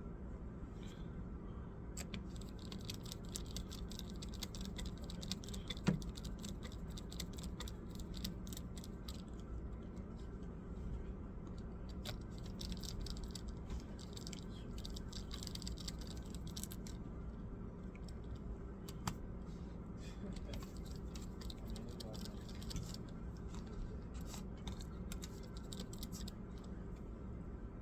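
Faint, irregular clicks and light taps from a laptop being worked on, over a steady low hum, with one sharper knock about six seconds in.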